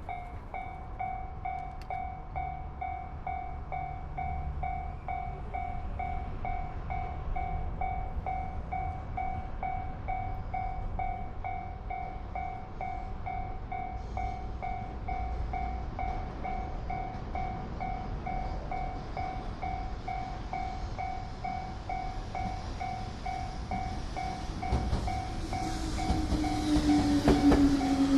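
Japanese railway level-crossing alarm ringing: a steady electronic ding repeating about twice a second. In the last few seconds a train comes up to the crossing, louder, with wheel clicks over the rail joints and a strong falling tone.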